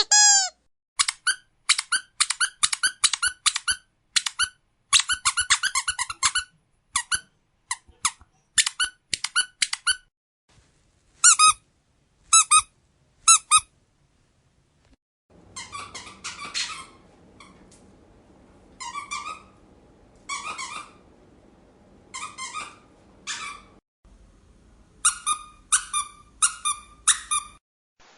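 Squeaky dog toy squeezed over and over: short high squeaks in quick runs of several at a time, with gaps between runs. For a stretch in the middle the squeaks are fewer and sit over a faint low hiss.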